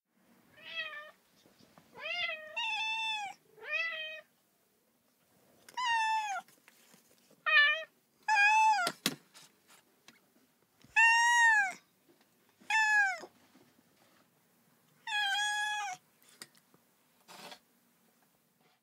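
Domestic cat meowing repeatedly: about ten separate meows, each a short call that rises then falls in pitch, spaced a second or two apart. A sharp click comes about nine seconds in.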